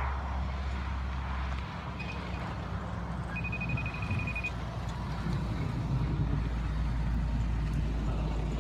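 Wind rumbling on the phone's microphone, a steady low buffeting, with two high electronic beeps: a short one about two seconds in and a longer one a second later.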